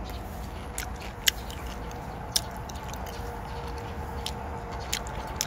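Person chewing a cherry: a handful of short, sharp mouth clicks over steady low background noise.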